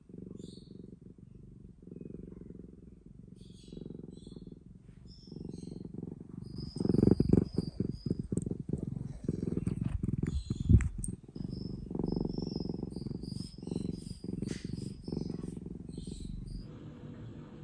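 Domestic cat purring as it is stroked, a low rumble that swells and eases with its breathing, recorded very close to its body. From about seven seconds in, fur brushes against the microphone, adding scratchy rubbing noises over the purr.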